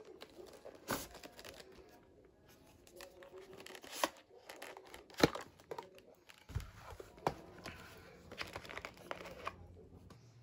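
Cardboard product box being handled and opened by hand: rustling and scraping of cardboard and packaging, broken by several sharp clicks and taps, the loudest about five seconds in.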